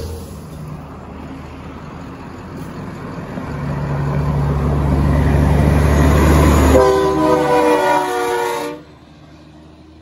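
An 18-wheeler's engine and tyres grow louder as it approaches, then its air horn sounds in one blast of about two seconds that cuts off sharply.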